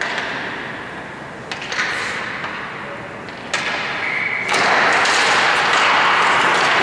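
Ice hockey faceoff: a few sharp clacks of sticks on the ice, then, about four and a half seconds in, as the puck is dropped and play starts, skate blades scraping across the ice rise into a loud, steady hiss.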